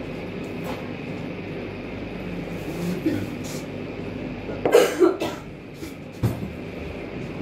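Low, indistinct chatter of voices in a small room. About five seconds in there is one short loud sound, and a sharp click follows about a second later.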